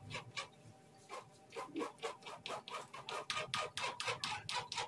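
Kitchen knife chopping diced carrot on a plastic cutting board: a run of sharp cuts, a few a second at first, quickening to about five a second in the second half.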